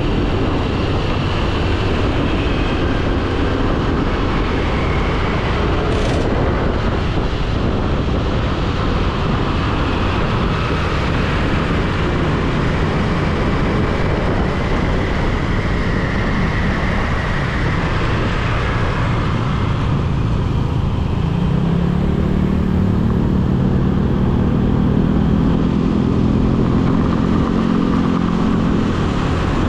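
City road traffic heard from a moving motorbike: a dense, steady wash of engine and tyre noise. Over the last third, one engine's hum stands out above it.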